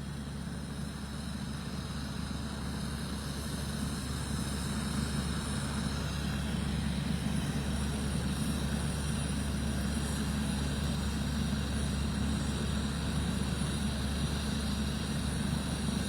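Helicopter turbine engine running steadily: a low hum under several steady high whining tones, growing gradually louder.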